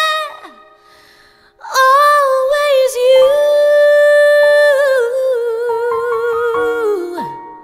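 A female vocalist sings a long wordless note with vibrato over soft, steady accompaniment chords. An earlier note fades out and slides down at the start, there is a brief hush, and then the new note comes in. It steps down in pitch and falls away near the end.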